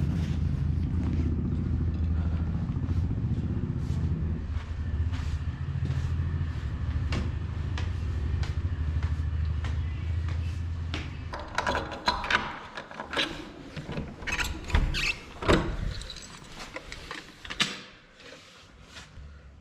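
A steady low engine hum, like a vehicle idling, that fades out about eleven seconds in, followed by a series of sharp knocks and clatter.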